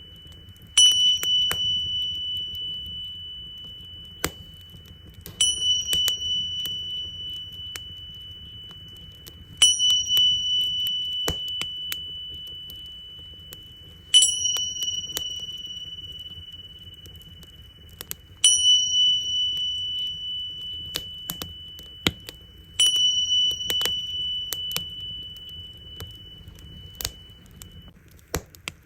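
Tingsha cymbals struck six times, about every four and a half seconds. Each strike gives a clear, high, ringing tone that slowly fades. Beneath them, a wood fire crackles with scattered pops and a low, steady rumble.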